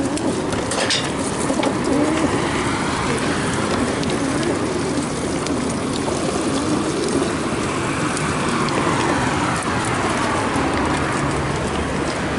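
Many racing pigeons cooing together inside the compartments of a pigeon transport truck, a dense overlapping chorus with scattered sharp clicks.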